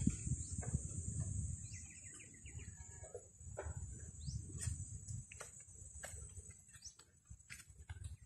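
Small birds chirping in short calls, including a quick run of chirps about two seconds in, over a steady high-pitched insect drone. Low wind rumble on the microphone dies down about halfway through, and a few sharp clicks follow.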